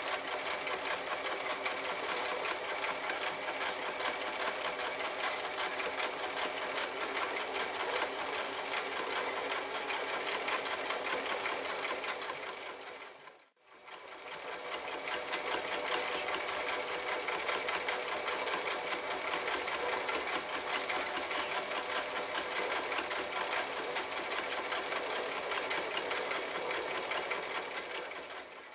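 Toyota 9090 electric sewing machine running fast, its needle stitching through eight layers of denim in a rapid, even rhythm. A little before halfway it slows and stops, then speeds up again sewing through two layers of leather.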